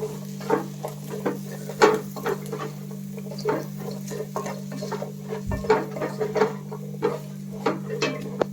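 Spatula stirring vegetables in a frying pan: irregular clinks and scrapes against the pan, two or three a second, over a steady low hum.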